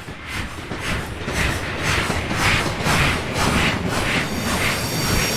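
Steam locomotive approaching, its exhaust chuffing about twice a second and growing louder over a low rumble.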